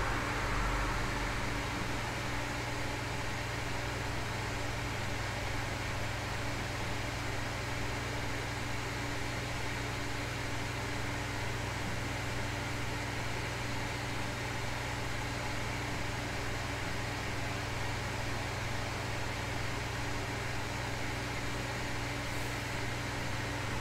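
Steady home-office room noise: an even hiss with a low, steady hum under it. The tail of a passing car fades out about a second in.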